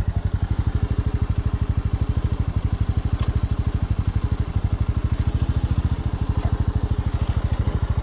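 Bajaj Boxer 150 motorcycle's single-cylinder four-stroke engine running at low, steady revs, its exhaust beat coming as an even, rapid pulse.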